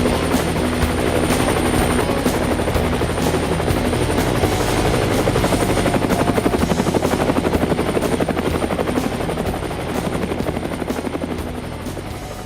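A motor or machine running steadily with a rapid, even throb, fading out over the last few seconds.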